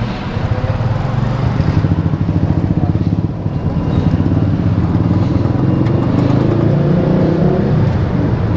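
Automatic motor scooter engine running steadily, getting a little louder about four seconds in.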